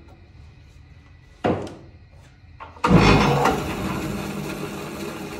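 A switch knock, then a Jet bandsaw starts with a sudden loud clunk and settles into steady running with a low hum. Its blade guide bearings have been freshly cleaned and freed.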